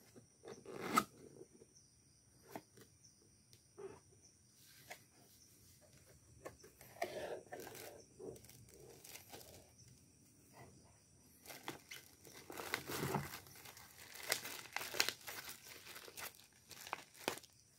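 Unboxing by gloved hands: cardboard box flaps and plastic bags rustling and crinkling in scattered handling noises, with a sharp snap about a second in and a busier stretch of plastic crinkling in the second half.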